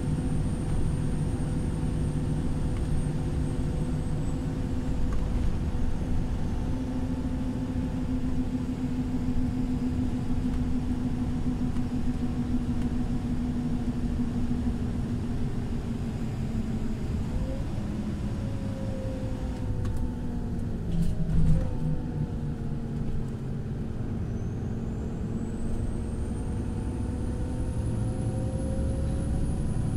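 Irisbus Crossway 12M bus running under way: a steady engine drone with a high whine that falls away about four seconds in and rises again near the end. Around twenty seconds in the tones dip and shift, with a few sharp clicks and a brief louder moment.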